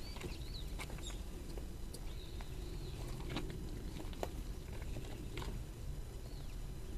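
Quiet outdoor background with a low rumble, a scattering of soft irregular clicks and a few faint, brief high chirps that rise and fall.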